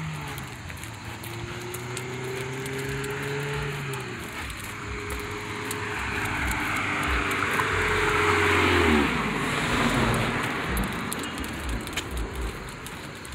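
A motor vehicle driving past on the street: engine and tyre noise build to a peak about nine seconds in, and the engine's pitch drops as it goes by.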